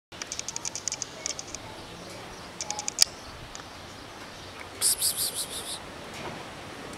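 Small birds chirping in quick runs of short, high notes, with a louder flurry about five seconds in and a single sharp click about three seconds in.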